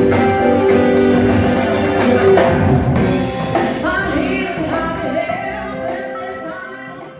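Rock music with guitar and drums, fading out near the end.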